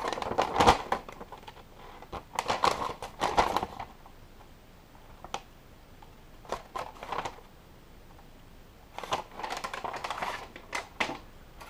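Large paper instruction leaflet rustling and crinkling as it is handled and folded. It comes in three bursts, with a quieter stretch in the middle.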